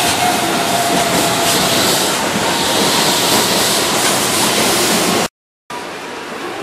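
Keihan 9000-series electric train running on the rails past and away, with a steady rumble of wheels and a faint motor whine fading out within the first second. About five seconds in the sound cuts off abruptly, and a quieter steady hum of the train standing at the platform follows.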